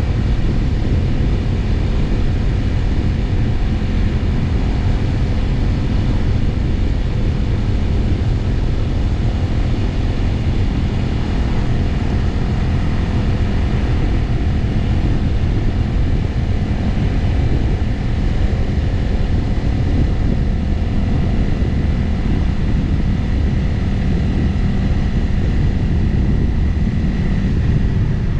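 Motorcycle engine running steadily at cruising speed, with wind rushing over the onboard microphone.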